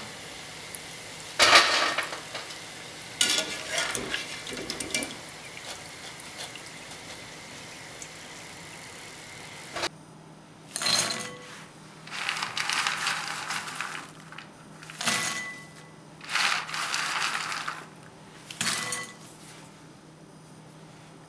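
Oil sizzling while fried chak-chak dough sticks are scooped out in a wire mesh strainer, with a couple of clattering knocks of the strainer and pieces. Then, five times, batches of the crisp fried dough sticks are dropped into a glass bowl, rattling and clinking against the glass with a faint ring.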